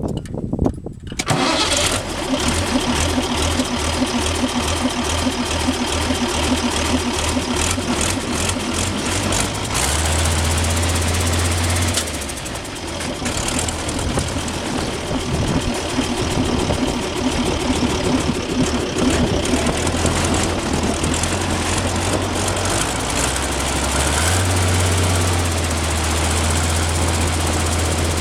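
Perkins V8.510 diesel engine in a Nuffield 10/60 tractor catching about a second and a half in on a cold start, then running with a lumpy low beat through the twin exhaust stacks. It settles into a steadier, deeper drone twice, at about ten seconds and again from about twenty-four seconds on.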